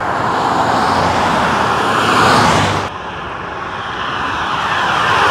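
Highway traffic passing close by: a loud rush of tyre and engine noise that swells to a peak about two seconds in, drops off suddenly, then builds again toward the end as another car approaches.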